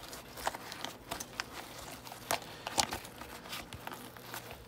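Handling noises as a DUI ZipGlove's rubber ring is pressed into the ZipSeal channel on a drysuit sleeve. There are scattered soft rubs, rustles and small clicks, with two sharper clicks a little past halfway.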